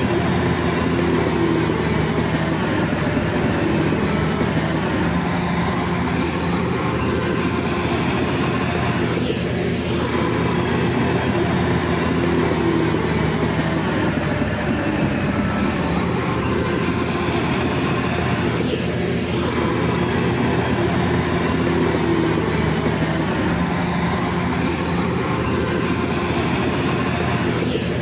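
Heavy engine running steadily under load, a continuous rumble with steady engine tones. The same pattern of sound repeats about every nine and a half seconds.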